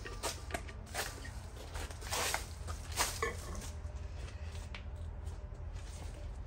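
Pruning shears snipping the tree's stems several times, with a longer rustle of foliage about two seconds in, over a steady low hum.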